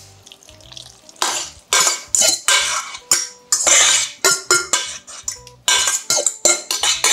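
A spatula scraping and knocking against a stainless steel mixing bowl, scraping wet grated-pumpkin mixture out onto flour in a second bowl. The quick scrapes start about a second in and come about three a second.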